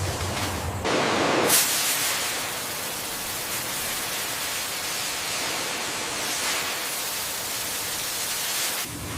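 A low machine hum, then about a second in a loud, steady hiss starts, like rushing steam or air, and cuts off suddenly near the end.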